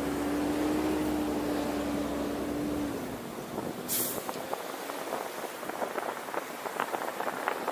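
Road traffic heard from a moving car: a steady vehicle engine hum with a low rumble fades out about three seconds in. A short high hiss follows about a second later, then irregular crackling ticks that grow denser toward the end.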